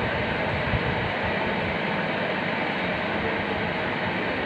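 Steady background noise, an even hiss with a low rumble under it, and one faint low thump just under a second in.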